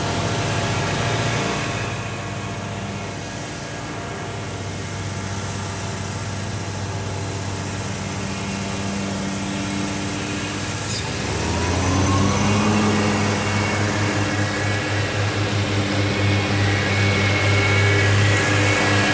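Gravely zero-turn mower's engine running steadily. About eleven seconds in, a rising whine comes in and the engine grows louder.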